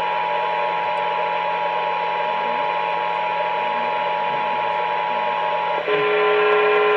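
Emergency Alert System attention signal: two steady alarm tones sounding together over a background hiss. About six seconds in it switches abruptly to a lower, buzzier alert tone.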